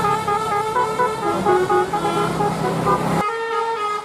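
Bus telolet horn of the Basuri type, its roof-mounted trumpets playing a quick tune of notes that step up and down over the bus's engine. The tune cuts off suddenly about three seconds in, leaving one short held note.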